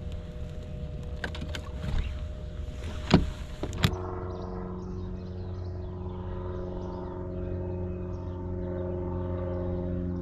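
Knocks on a fibreglass bass boat deck, then two sharp thuds like a hatch or livewell lid being shut after a fish is put away. After that, a steady electric hum with several even tones from a bow-mounted trolling motor running.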